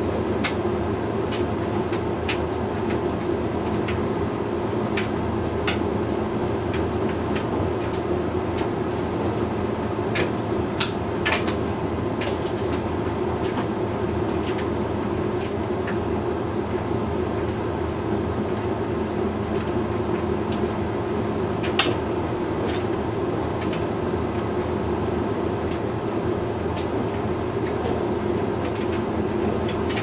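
Hoover Link X Care HLX C10DRGR condenser dryer running a Lingerie cycle: a steady drum-and-fan drone with a constant hum, with scattered light clicks throughout.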